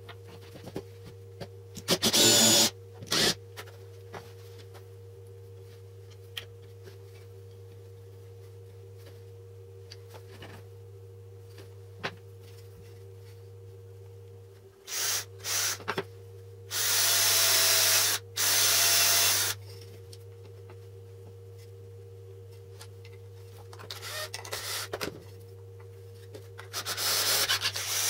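Wooden jig parts being handled and fitted together on a workbench, with several loud bursts of rubbing and scraping noise, the longest two lasting one to two seconds about two-thirds of the way in, over a steady low hum.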